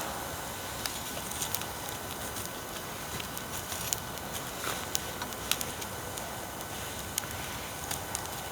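Wood fire burning with irregular sharp crackles and pops over a steady rushing hiss; the loudest pop comes about halfway through.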